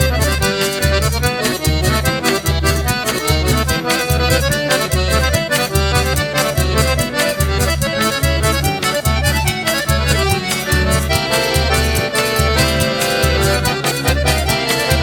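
Instrumental forró pé de serra: accordion playing the melody over a steady, driving rhythm of bass drum pulses and a rapid ticking percussion, with no singing.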